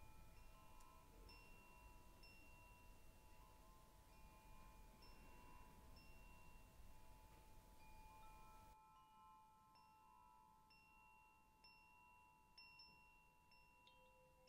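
Very faint ambient meditation background music: several long held tones with short, soft high bell-like notes over them. A background hiss drops away about nine seconds in while the tones carry on.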